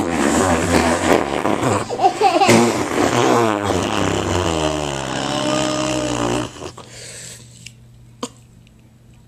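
A man blowing raspberries against a baby's skin, a loud buzzing lip noise with a few short breaks that stops about six and a half seconds in, leaving only a couple of small clicks.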